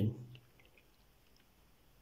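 The end of a spoken word, then near silence with a few faint ticks in the first second from a pick working the pins of a brass cross lock.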